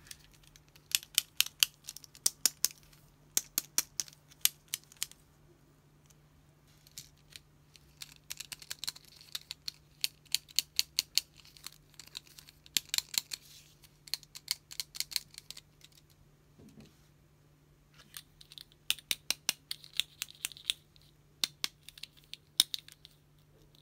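Rapid runs of sharp clicks and taps from small hard-plastic doll accessories being handled and tapped with long fingernails, coming in several bursts with short pauses between.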